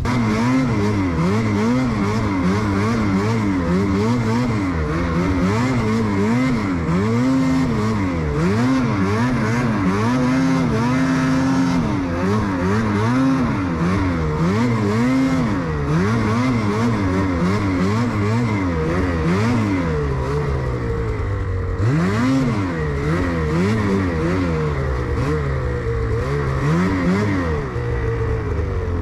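Ski-Doo snowmobile engine running under load, its pitch rising and falling over and over as the throttle is worked while riding through snow.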